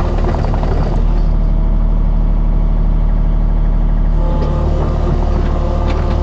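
Rented skid steer's engine running steadily, a continuous low mechanical drone; the sound shifts, losing its hiss, between about one and four seconds in before returning.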